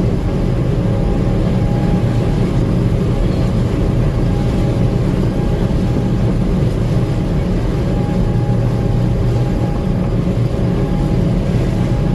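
Gleaner M2 combine running steadily while harvesting corn: a loud, even engine drone with a steady higher whine from the machinery.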